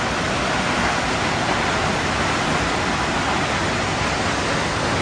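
Kegon Falls, a tall plunge waterfall, pouring: a loud, steady rush of falling water.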